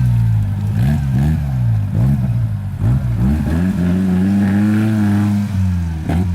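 Suzuki Vitara's engine revving up and down in quick repeated rises and falls under off-road driving, then held at higher revs for about two seconds before the revs drop near the end.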